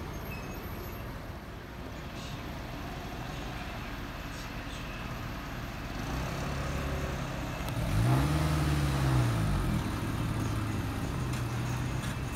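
Street traffic: a steady low engine rumble, with one vehicle's engine rising and then falling in pitch as it passes about eight seconds in, the loudest moment.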